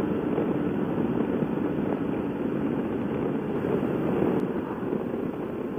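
Honda motorcycle cruising at steady speed on an open road, its engine and the rush of wind and tyres heard from a camera on the bike as an even, unbroken noise.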